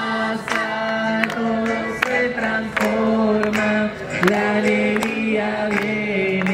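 A group of people singing a religious song together in long held notes, with hand claps keeping a steady beat.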